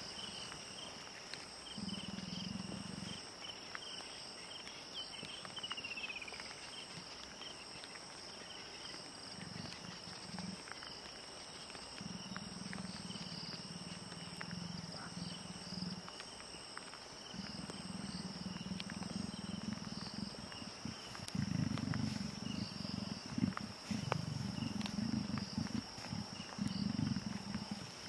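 Leopard growling in low bouts of one to four seconds, the growls longer and louder in the second half; these are growls from a male and female leopard during courtship. Insects trill steadily in the background.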